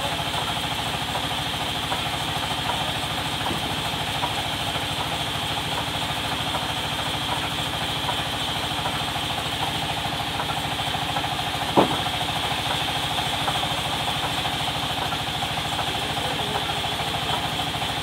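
Sawmill band saw and its drive running steadily: a low pulsing drone with a steady high whine. A single sharp knock about twelve seconds in.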